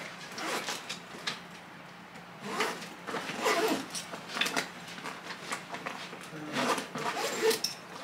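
Rustling and scraping handling noises in several irregular spells as a bag and belongings are packed, over a steady low room hum.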